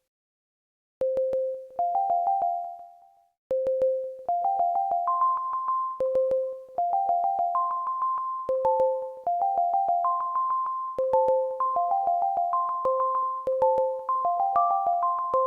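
Instrumental music: a simple melody of short notes with sharp attacks that die away quickly. It starts about a second in, stops briefly near three seconds, then carries on in a steady rhythm.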